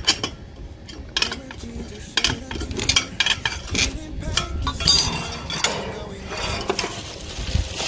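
Metal clinks and taps as a satellite dish's steel LNB mounting plate and feed-arm rod are handled and fitted together. The loudest is a bright, ringing clink about five seconds in.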